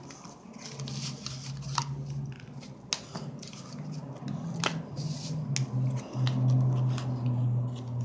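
A clear plastic clamshell blister pack being cut and pried open with a folding knife: crackling of stiff plastic with several sharp clicks. A low steady hum runs underneath and is loudest near the end.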